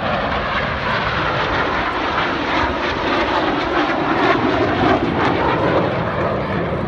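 Steady jet noise from the Red Arrows' BAE Hawk T1 jets flying in formation. It grows somewhat stronger in the middle.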